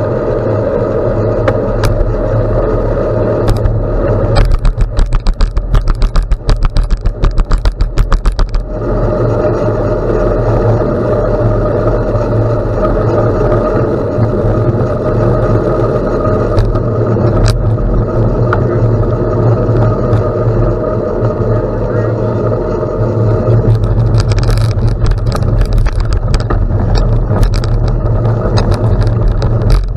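Bicycle ride on a gravel road: a steady rumble of tyre and riding noise, with a stretch of rapid rattling clicks about four to eight seconds in and scattered clicks later.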